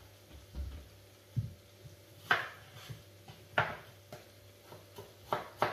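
Chef's knife slicing a raw potato thin on a wooden cutting board, each cut ending in a sharp knock of the blade on the board. The knocks come singly with gaps of about a second, then three in quicker succession near the end.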